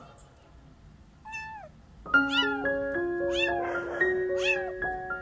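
A young kitten meowing four times, about once a second, each meow high and falling in pitch. Background music with held notes comes in about two seconds in and is louder than the meows.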